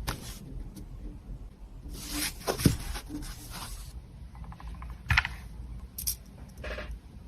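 Close-up handling of packaging: wrapping rustles and crinkles for about two seconds, followed by several separate sharp taps and clicks.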